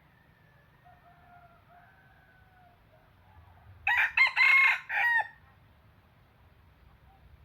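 Red junglefowl cock crowing once: a short, clipped crow of about four joined syllables lasting under a second and a half, loud against the quiet background.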